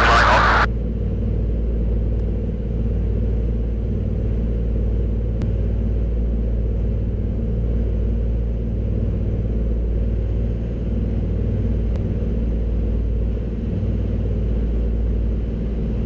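Avro Anson's twin seven-cylinder Armstrong Siddeley Cheetah radial engines running in a steady low drone with an even, faint pulsing beat.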